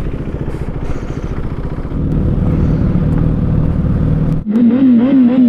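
Motorcycle engine running while riding, with wind noise, getting louder about two seconds in. Near the end it cuts off abruptly and a wavering pitched sound takes over.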